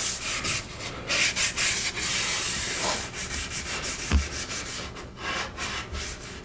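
Nylon scrub pad rubbing paste wax onto a shellac-finished wooden stand: a dry, hissing scrub that turns into quick back-and-forth strokes, about three a second, with one low knock against the wood about four seconds in.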